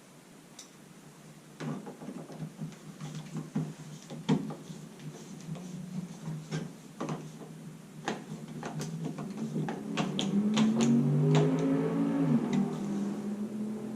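Sharp clicks and taps of a light-switch wall plate and screws being handled. About ten seconds in, a cordless drill motor runs for a few seconds, its pitch rising and falling as it drives a screw.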